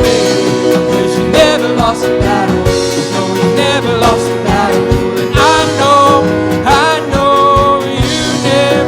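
Live worship band music: drums keeping a steady beat under sustained chords and bass, with a wavering lead melody line gliding over the top.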